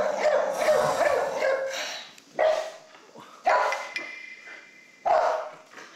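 Dalmatian barking: a quick run of barks, then three single barks spaced about a second apart.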